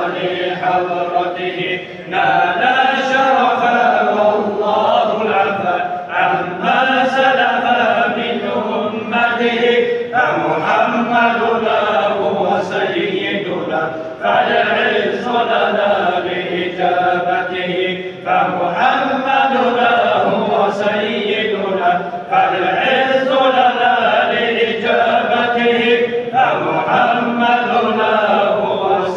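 A group of men chanting a devotional mawlid hymn in praise of the Prophet Muhammad, one voice leading on a microphone. The chant runs in phrases of about four seconds with brief breaths between them.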